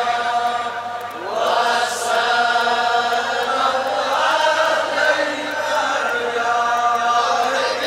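A man's voice chanting a devotional refrain of blessings on the Prophet in long, drawn-out notes, with a rising slide in pitch about a second in.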